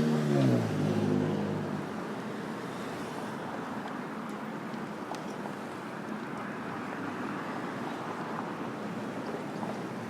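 City street traffic. In the first two seconds a passing vehicle's engine hum drops in pitch and fades away, then an even wash of traffic noise carries on.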